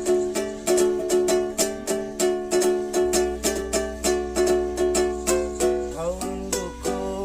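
Ukulele strummed in a steady rhythm, about three strums a second, ringing out chords.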